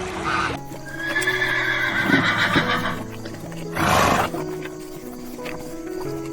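A horse whinnying: one long neigh about a second in, falling in pitch over about two seconds, followed by a short noisy burst. Background music with steady held notes plays under it.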